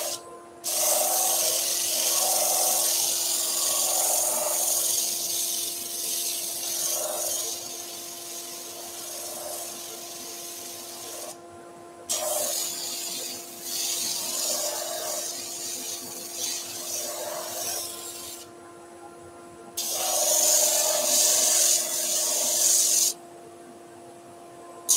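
A small piece of wood sanded against a large sanding disc spinning on a woodturning lathe: a rasping hiss in long stretches, broken off four times for a second or so as the piece is lifted away to check the angle, over the steady hum of the lathe. The sanding is grinding a 45-degree facet onto the end of a leg segment.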